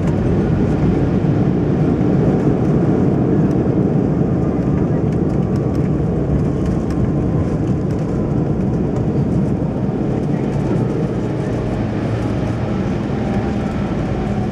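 Cabin noise of an Embraer 195 airliner decelerating on the ground after landing: a loud, steady rumble of engines and wheels that eases slightly, with a faint whine that falls a little in pitch near the end.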